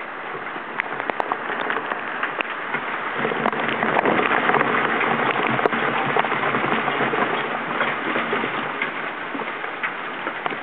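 Heavy storm rain falling: a steady hiss with many sharp drop ticks, getting louder about three seconds in.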